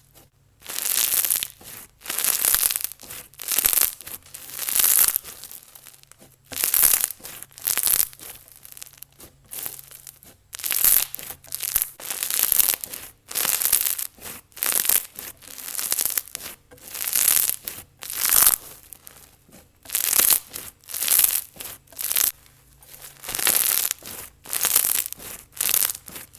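Pink-white glue slushie slime being squished and pressed by hand: a run of short crackly squishes, about one a second.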